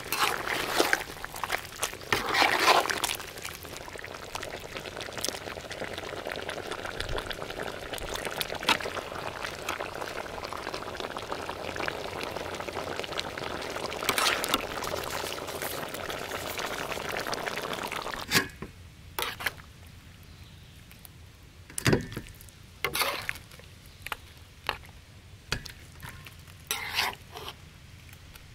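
A pot of braised pig head with tomatoes bubbling in its sauce while a metal ladle stirs and scrapes through it, with louder stirring near the start and again about halfway. About 18 seconds in, the bubbling stops and only separate metal clinks and knocks are left.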